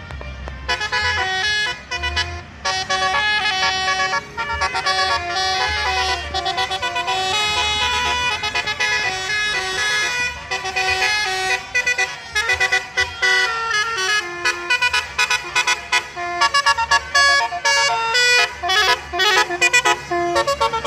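A basuri-style musical vehicle horn playing a tune, one quick stepped note after another, over a low rumble.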